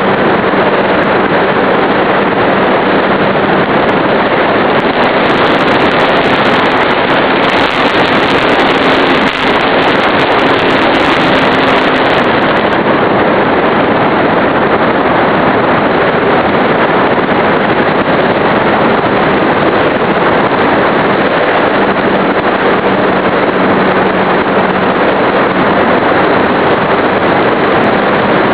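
RC model airplane in flight, heard from its onboard camera: steady, loud wind rush over the microphone mixed with the hum of the E-flite Power 25 brushless electric motor and propeller. The motor's pitch rises slightly for a few seconds partway through, then settles lower.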